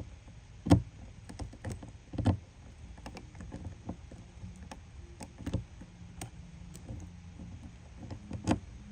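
Hand pop-rivet tool being worked to set a rivet holding a marker light: a series of sharp clicks and knocks at uneven spacing, the loudest about a second, two seconds, five and a half seconds and eight and a half seconds in.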